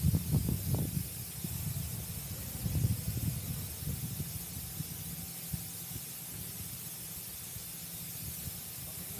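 Steady high hiss of dry-dock work noise, with irregular low rumbling in the first few seconds that fades to a steadier background.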